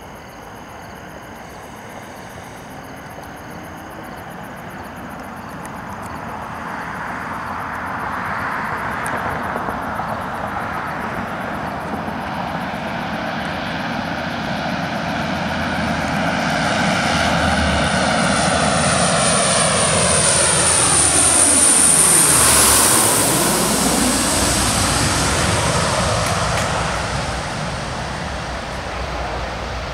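Lockheed C-130 Hercules' four turboprop engines growing louder as the aircraft comes in low on approach. It passes closest about 22 seconds in, where a high-pitched whine drops in pitch, then the sound eases off.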